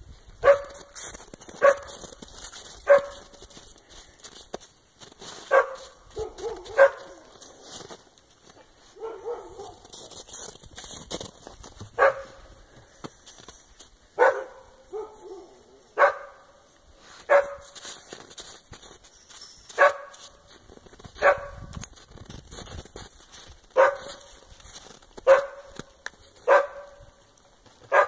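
A dog barking over and over: single short barks every one to two seconds, with a pause of several seconds partway through.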